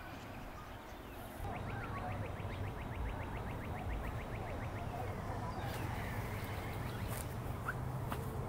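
Outdoor ambience of birds calling, with a rapid ticking trill of about ten notes a second for a couple of seconds. Under it runs a low steady rumble, and several sharp clicks come near the end.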